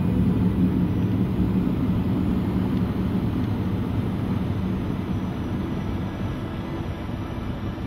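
Light aircraft's engine and rushing air heard from on board during the final approach and landing: a steady low drone with faint tones that slowly gets quieter.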